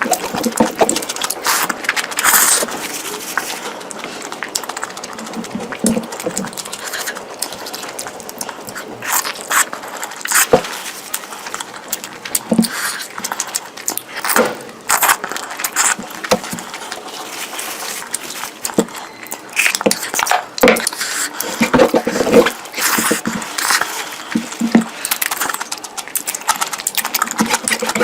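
Close-miked eating sounds of curry being eaten: chewing and wet mouth clicks coming irregularly, several a second.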